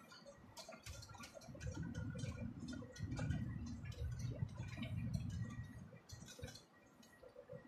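Rapid irregular clicks and rattles inside a large vehicle's cab driving over a rough dirt road, over a low rumble that swells about a second and a half in and fades before the end.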